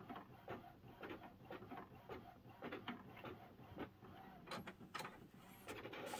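Epson EcoTank ET-8550 inkjet printer printing a nozzle check pattern. It makes a faint, regular run of short mechanical strokes, about three a second, and a longer whirr near the end.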